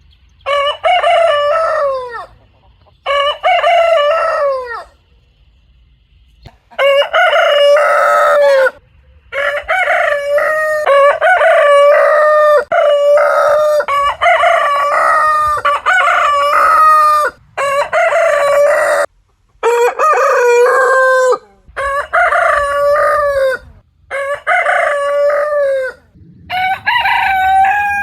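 Roosters crowing: about a dozen cock-a-doodle-doo crows, one after another with short gaps between them, each lasting one to two seconds.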